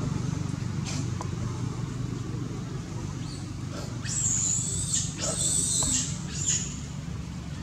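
Two shrill, high-pitched monkey screams, each about a second long, over a steady low hum.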